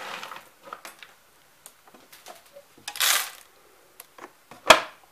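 Light clicks and handling knocks on a DeLonghi Magnifica espresso machine, with a short noisy rush about three seconds in and one sharp click near the end.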